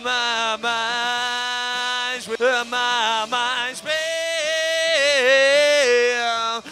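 A recorded male lead vocal singing long held notes alone, moving up to a higher note partway through and falling back near the end. The voice carries more than enough lower mid-range, around 500–600 Hz, when he holds a note and comes down, which the dynamic EQ is being set to tame.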